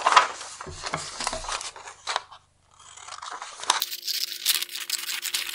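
A sheet of paper rustling and crinkling as it is handled and folded, then, from about four seconds in, scissors snipping through the paper to cut off a strip.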